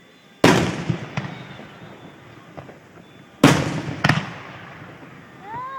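Aerial fireworks shells bursting: a loud bang about half a second in and two more close together around three and a half and four seconds in, each trailing off in a long rolling rumble, with a smaller crack after the first. Near the end a short tone rises and falls.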